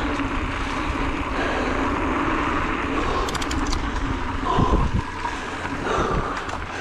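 Steady wind rush over the camera microphone mixed with the rumble of a mountain bike rolling fast down a dirt trail. A few sharp clicks come a little past three seconds in, and low thumps near five seconds.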